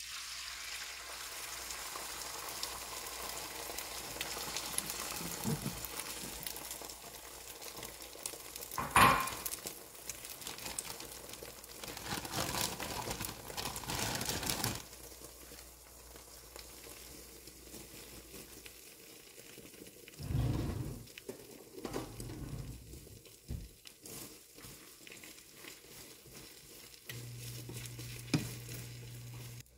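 Beaten eggs hitting a hot nonstick frying pan and sizzling steadily as they fry into a thin omelette, louder in the first half. A sharp knock comes about nine seconds in, and a few dull thuds follow about two-thirds of the way through.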